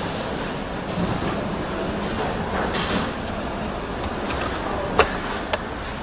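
Car assembly-line factory floor noise: a steady machinery rumble, a brief hiss about halfway through, and two sharp clicks near the end.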